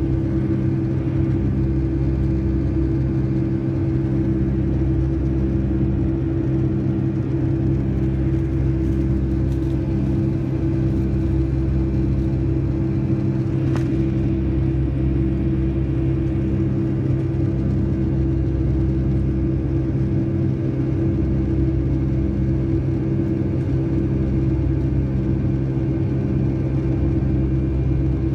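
Boeing 757-200's jet engines and airflow heard from a window seat over the wing: a steady, loud cabin drone with a low hum that throbs in a slow, even beat about every second and a half. A faint click about halfway through.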